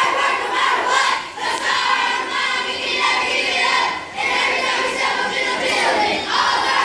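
A class of young children chanting a cheer together in unison, a loud, sing-song group chant answering a roll call.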